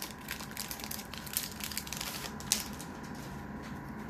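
Foil wrapper of a Pokémon booster pack crinkling and crackling as it is torn open by hand. The crackles are densest for the first two and a half seconds, then thin out.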